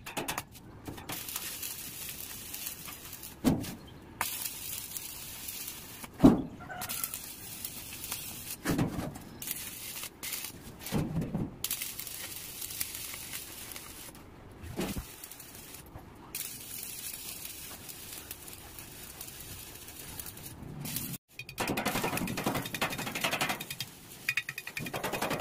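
Stick (arc) welding on a sheet-metal boat hull: the arc crackles and sizzles in stretches, breaking off and restarting, with a few dull knocks in between. It is louder in the last few seconds.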